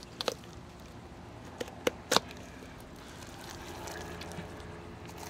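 Fillet knife cutting through the side of a large cubera snapper on a fish-cleaning table, with a few sharp clicks in the first couple of seconds, over a faint steady hum.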